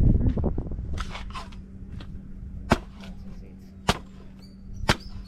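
Machete chopping open a green jelly coconut: three sharp strikes about a second apart.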